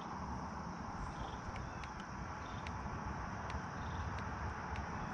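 Outdoor background noise: a steady low rumble, with faint, irregular high ticks and short chirps from insects.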